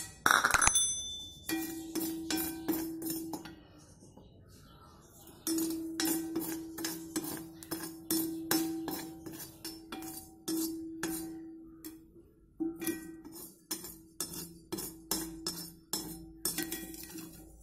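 Perforated steel spatula scraping and clinking against a black kadai while stirring raw rice as it dry-roasts, about two to three strokes a second, with a steady ringing note under the strokes. The stirring pauses for about a second and a half around four seconds in.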